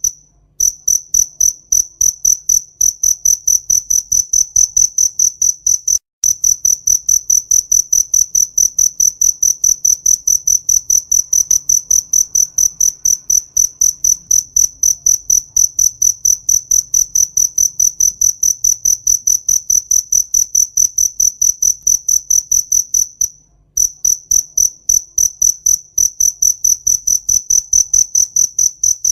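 Cricket chirping: a high-pitched, even run of rapid pulses, about four a second, stopping briefly three times.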